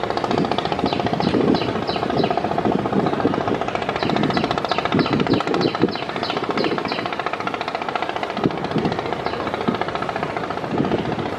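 Diesel engine of a river passenger launch running with a fast, rattling throb. Two runs of short high chirps, about four a second, sound over it, one near the start and one from about four to seven seconds in.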